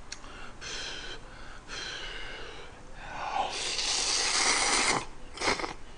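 A few short breathy puffs, then, about three and a half seconds in, a long loud slurp as a man sucks a mouthful of ramen noodles into his mouth, ending with a short sharp sound.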